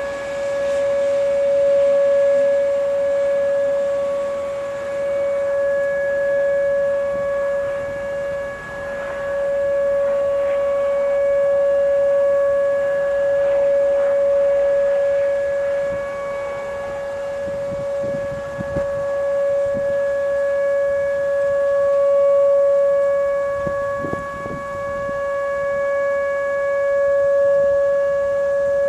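Whelen outdoor warning siren sounding a steady alert tone in a nuclear power plant siren test. It is one unbroken, fixed-pitch wail that swells and fades in loudness every few seconds.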